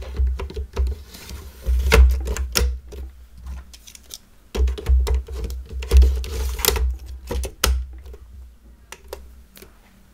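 Two 3.5-inch hard drives in their trays slid one after the other into the bays of a QNAP TS-453E NAS, each with scraping, knocking and clicks as the tray goes in and latches.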